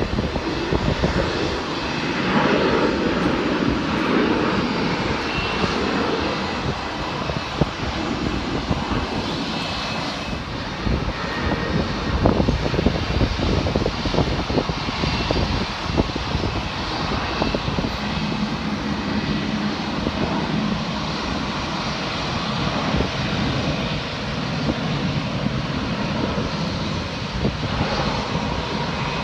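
Jet airliner engines running steadily, with wind buffeting the microphone in irregular gusts.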